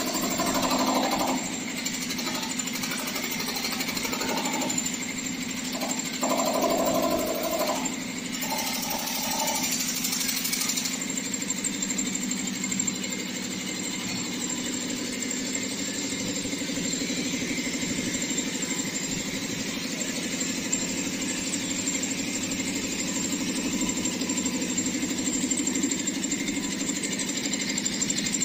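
Two-cylinder ELGi-model piston air compressor pump driven by a V-Guard electric motor, running steadily with a fast even chugging and hum.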